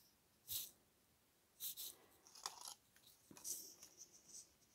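Faint handling of paper craft pieces: several short rustles and light taps, about a second apart.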